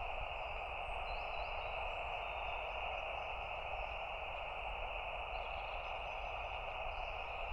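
Steady hiss of an empty band from the LAB599 TX-500 transceiver's speaker in single-sideband receive: the frequency is being listened to for other stations after asking if it is in use. A few faint bird chirps come through now and then.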